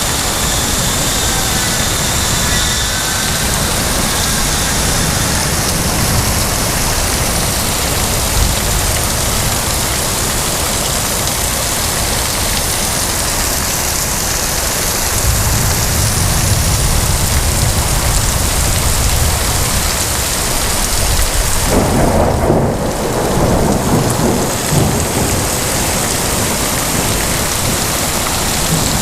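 Heavy rain falling steadily, with thunder rumbling low from about halfway through and loudest about three quarters of the way in.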